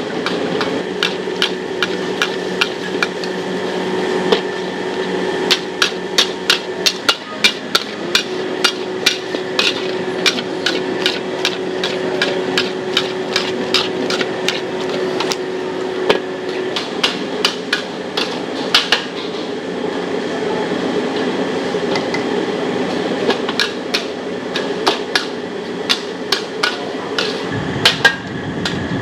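Metal wok spatula striking and scraping a wok as noodles are stir-fried, with many sharp clanks a few a second, over a steady hum.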